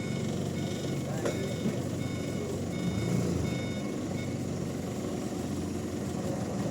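A vehicle's reversing alarm beeping repeatedly over a low engine rumble, with the beeps stopping a little past halfway; a single knock about a second in.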